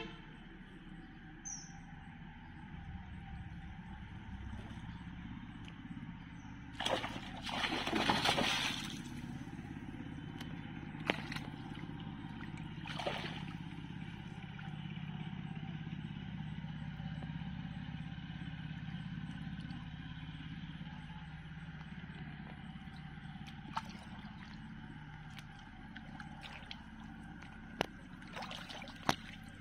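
Water sloshing and splashing as a cast net is hauled in by hand through shallow muddy pond water, with one longer, louder splash about seven to nine seconds in and a few sharp clicks scattered through. A steady low hum runs underneath throughout.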